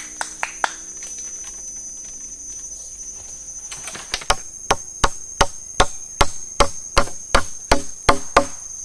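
Rapid, evenly spaced chopping blows on wood, about two or three a second, starting about four seconds in, over a steady high insect drone.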